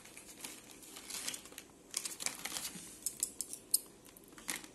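Clear plastic quail-egg tray crinkling and crackling in the hand, a run of irregular sharp plastic crackles and clicks.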